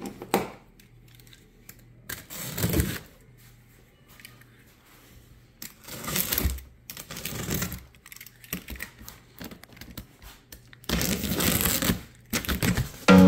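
A large cardboard shipping box being handled and opened: scraping and rustling of cardboard in several separate bursts, with small clicks and knocks between them.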